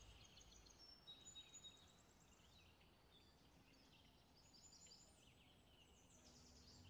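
Near silence: faint room tone with a few faint, high chirps scattered through it.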